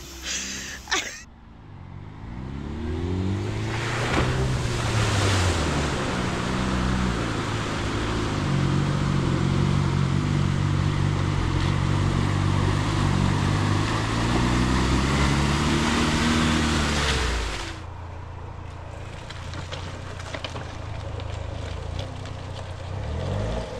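Land Rover Freelander's engine revving hard as it churns through deep mud, its pitch rising and falling again and again over a steady rush of splashing mud and tyre noise. About 17 seconds in it cuts off suddenly, leaving a quieter engine sound.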